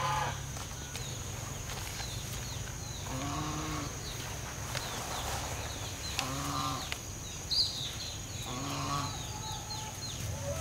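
A farm animal calling three times, each a short, drawn-out call rising and falling in pitch, two to three seconds apart. Small high chirps, like birds, run underneath.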